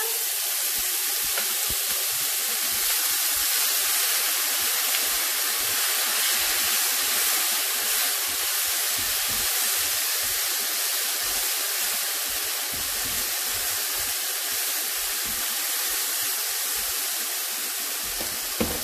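Water poured into a hot oiled frying pan, sizzling with a loud, steady hiss as it boils off in steam. A brief click comes near the end.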